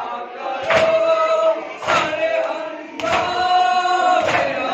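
Group of men chanting a mourning lament (nauha) in unison, long held notes punctuated by loud slaps of hands beating on chests in matam, four strikes a little over a second apart.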